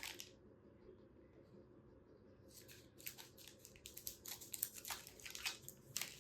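Packaging being opened by hand, rustling and crinkling in a rapid run of faint crackles that starts about two and a half seconds in.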